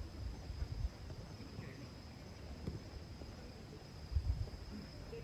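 Storm wind buffeting the microphone in low rumbling gusts, strongest at the start and again about four seconds in, over a steady high-pitched insect trill.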